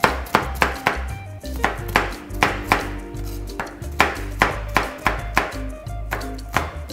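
Chef's knife dicing red bell pepper on a plastic cutting board: quick, even chops, about three or four a second, with a short pause about halfway through. Background music plays underneath.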